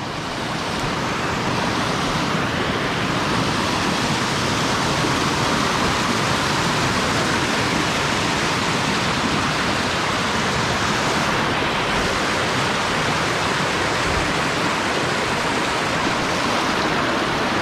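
Steady rushing of fast-flowing river water, an even hiss with no break.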